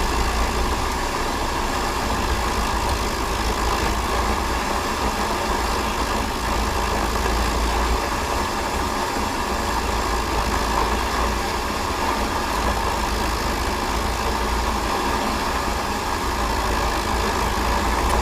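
Metal-cutting bandsaw running steadily while it cuts metal bar stock into blanks.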